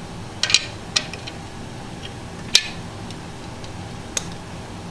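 Small metal hand tools (a socket wrench and its bits) being handled: four or five sharp, separate metallic clinks, the loudest about half a second and two and a half seconds in.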